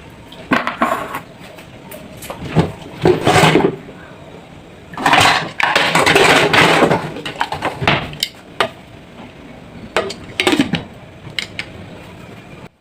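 Dishes and pots being handled in a kitchen: a run of knocks and clatters, with longer scraping, rattling stretches a few seconds in and again around the middle.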